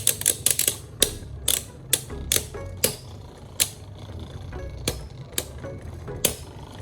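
Two Beyblade Burst spinning tops, Gatling Dragon and Dynamite Belial, spinning in a plastic stadium with a low whirr and irregular sharp clicks, about two a second, as they strike.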